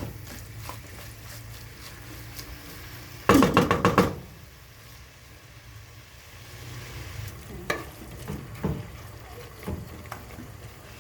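Spinach and meat sizzling steadily in a pan. About three seconds in, a utensil stirs and knocks against the pan in a quick loud burst, and a few lighter knocks follow later.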